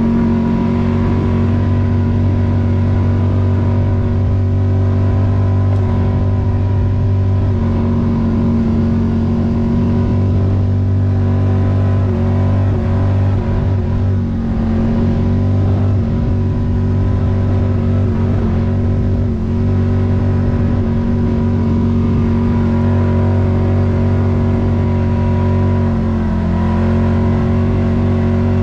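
Honda HS828 two-stage snowblower's engine running steadily at a constant speed while clearing snow.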